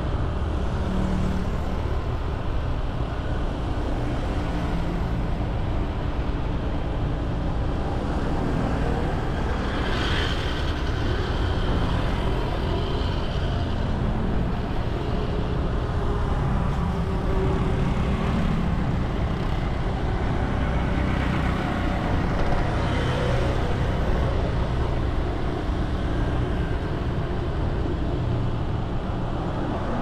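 Steady road traffic: motor vehicles running and passing, with a brief higher-pitched tone about ten seconds in.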